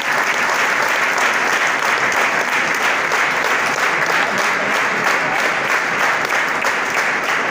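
A large crowd applauding, many hands clapping loudly and steadily.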